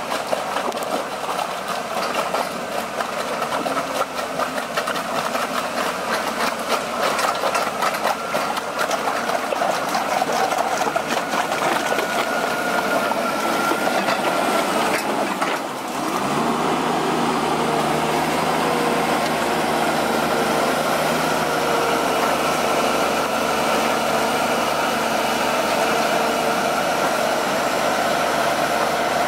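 Valmet 840.3 forwarder's diesel engine running under load as the loaded machine crawls through deep mud on tracked bogie wheels, with rapid clanking of the bogie tracks over the first half. After a brief dip about sixteen seconds in, the engine runs on at a steadier, even pitch.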